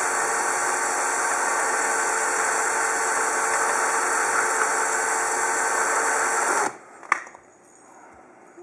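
Power drill running steadily at speed, spinning a plastic arrow nock in its chuck against sandpaper held around it to sand the nock down. The drill cuts off suddenly about two-thirds of the way through, followed by a single click.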